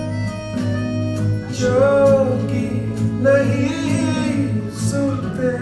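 A song with guitar and a singing voice, played back through loudspeakers driven by an AIYIMA A07 MAX Class D amplifier for a sound test. A steady bass line runs under it, and the voice comes in about one and a half seconds in.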